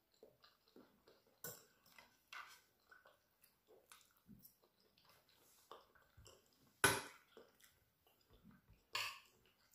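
Quiet eating sounds: chewing and small mouth clicks, with a fork and knife clinking and scraping on a plate in a few short, sharper sounds, the loudest about seven seconds in.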